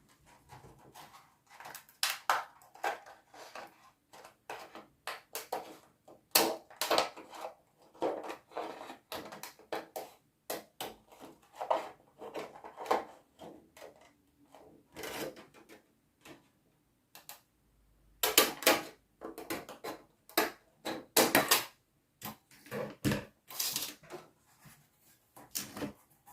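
Irregular clacks, taps and knocks of small hard craft materials handled on a work table: thin acrylic sheet, a frame and chipboard backing being moved and set down.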